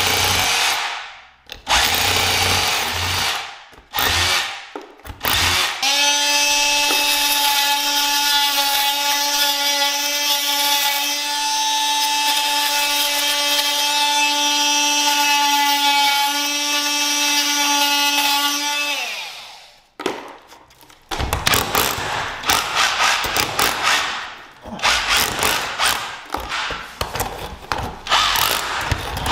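A drill with a long masonry bit bores a series of short holes into a plaster wall in stop-start bursts. From about six seconds in, an oscillating multi-tool cuts out the soft wall between the holes with a steady high buzz for about thirteen seconds. After a brief pause, a drill fitted with a chisel bit hammers out the back-box recess with a rapid knocking.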